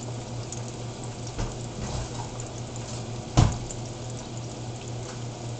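Breaded tilapia fillets frying in oil in a skillet: a steady sizzle with faint crackles over a constant low hum. A single sharp knock sounds a little past halfway.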